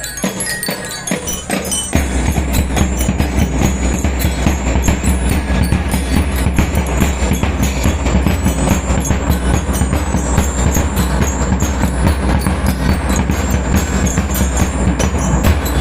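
A school lyre-and-drum band playing: bell lyres ringing out a tune over marching drums keeping a steady, dense beat, with the bass drums coming in louder about two seconds in.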